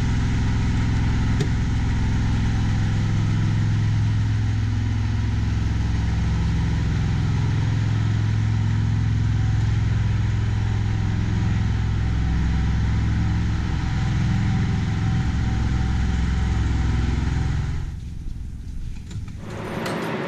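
A steady, deep engine hum, like a machine idling at constant speed, which drops away about 18 seconds in.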